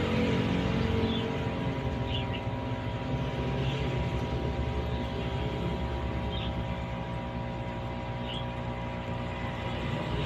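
Aquarium air pump humming steadily with a low rumble, its air stone sending up bubbles that give a few faint high blips.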